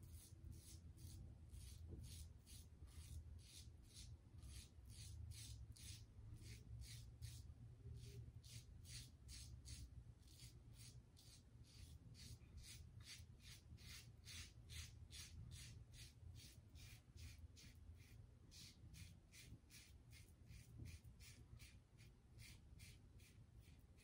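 Safety razor scraping through lathered stubble in short, faint strokes, about two a second.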